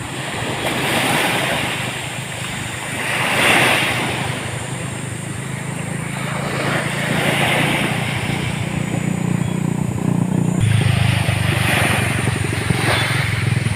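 Sea waves breaking on a beach, a rush of surf swelling and fading every few seconds, over a steady low rumble that changes abruptly about ten seconds in.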